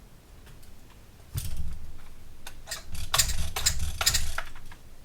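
Recoil starter of a two-stroke RedMax hedge trimmer pulled twice, the second pull longer and louder, spinning the engine over without it starting, as it is cranked to check for spark.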